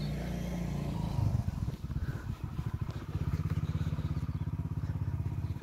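Motorcycle engine running at low speed, a low putter that turns uneven about a second in and then settles into a quick, even beat.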